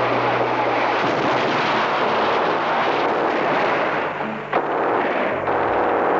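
Battle sound of artillery and gunfire, a dense continuous din with a sharp crack about four and a half seconds in.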